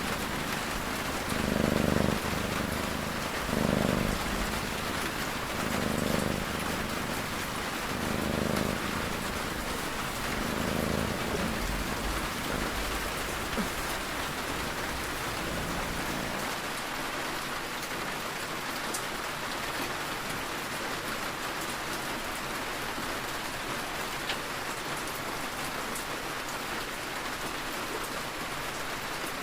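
Steady rain with a cat snoring: five slow snoring breaths, about one every two and a half seconds, over the first ten seconds or so, then the rain alone.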